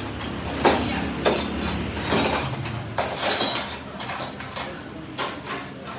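Metal hand tools clinking and knocking on metal parts under a vehicle during steering rack work: a run of irregular, sharp metallic strikes, about one or two a second.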